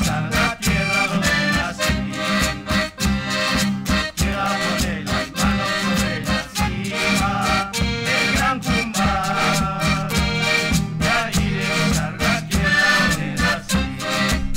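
Traditional music played on instruments: held melodic notes over a steady beat of percussive strikes.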